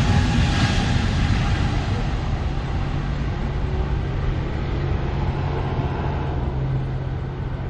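Twin jet engines of an AirAsia Airbus A320-family airliner running as it rolls and turns on the runway: a steady rumble and hiss, with a low steady hum joining about two seconds in.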